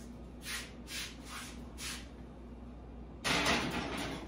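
A few soft scuffs, then about three seconds in a louder scraping rush as the oven door of a gas range is opened and a glass baking dish is slid inside.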